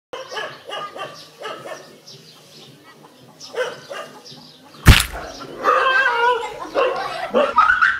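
Dog barking in a quick series of short barks, then a single loud, sharp smack about five seconds in, followed by a run of wavering high-pitched sounds.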